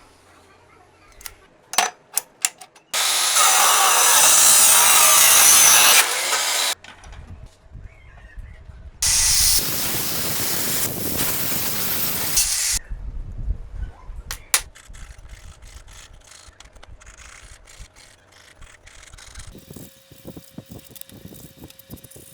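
Workshop tool noise: a few sharp clicks, then two loud spells of machine noise of three to four seconds each, then lighter knocks and rattles.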